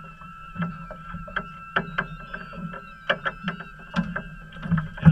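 Irregular sharp clicks and knocks aboard a small fishing boat, about one or two a second, over a steady hum, louder near the end.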